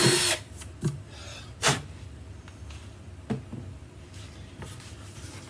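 A cordless drill, which has just bored a control hole through the guitar's top, stops suddenly right at the start. A few light knocks follow, the loudest about a second and a half in, as the drill is set down and the guitar body is handled.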